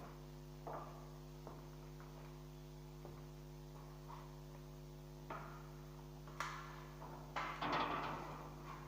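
Steady electrical hum from the welding setup, with a few sharp knocks and clinks of metal being handled. A short, rougher scraping burst comes near the end.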